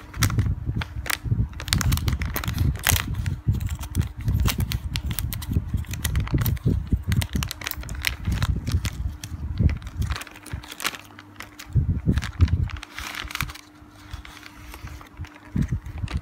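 Plastic snack wrapper crinkling and crackling in gloved hands while scissors cut it open: a dense run of irregular sharp crackles and rustles over low handling thumps.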